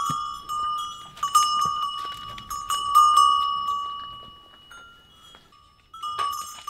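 A metal livestock bell clanking again and again as the animal wearing it moves, each strike ringing on. The ringing dies away about four seconds in, goes almost quiet, and the clanking starts again near the end.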